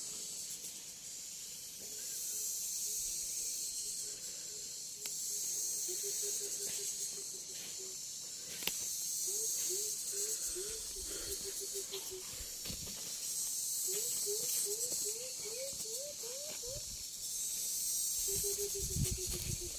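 Insect chorus outdoors: a high, steady hiss that swells and fades every few seconds. Behind it, a bird calls in series of short repeated notes, some of them rising.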